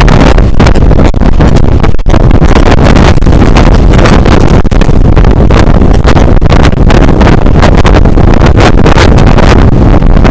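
Constant loud wind buffeting on a camera microphone with no windscreen, held out the window of a moving passenger train, gusting irregularly and heavy in the low end.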